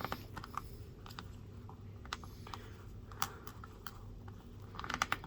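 Small plastic clicks and taps from an action figure and its display stand being handled and fitted together: scattered clicks, then a quick flurry near the end.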